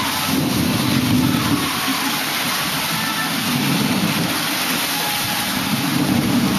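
Steady rushing noise of wind on the microphone over the sea, swelling and easing in gusts every second or so.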